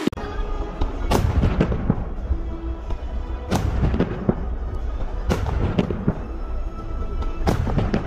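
Aerial firework shells bursting overhead: about five sharp booms a second or two apart, each trailing off in an echo, over a steady low rumble.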